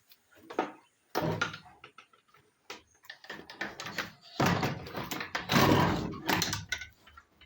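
A door being opened and shut: a bang about a second in, then a longer scraping rattle with knocks in the second half.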